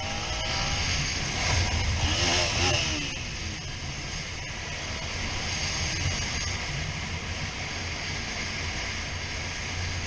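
Suzuki SV650 V-twin motorcycle being ridden: a low engine rumble under steady wind rush on the helmet microphone. It gets louder for a moment about two seconds in, with short gliding tones.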